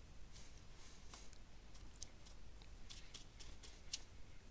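Quiet room tone with faint, scattered soft taps as a paintbrush dabs spots of ink onto fabric.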